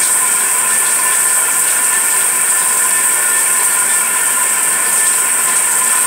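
A hair dryer running steadily: a loud, even blowing hiss with a steady high motor whine.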